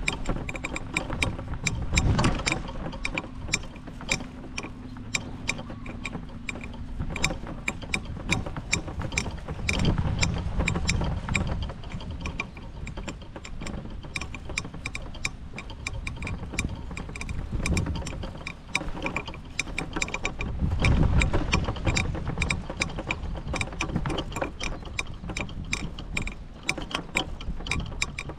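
A rapid, continuous run of small mechanical clicks and rattles, like a wheeled cart rolling over fairway grass. Low gusts of wind rumble on the microphone a few times.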